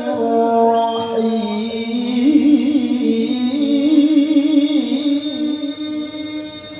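A Quran reciter's voice singing a long, drawn-out melismatic note in tilawah style, held and ornamented with a wavering vibrato. The pitch drops about a second in and climbs again about two seconds in.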